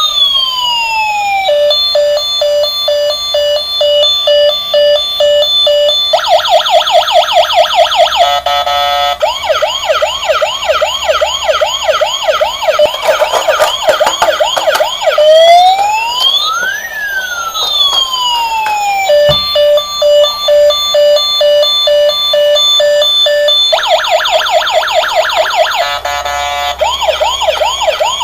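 Toy RC emergency vehicle's electronic siren sound chip, cycling through its patterns: a slow rising-and-falling wail, a steady repeating beep, fast yelping sweeps and a quick pulse, then more rapid sweeps. The sequence starts over about 16 seconds in.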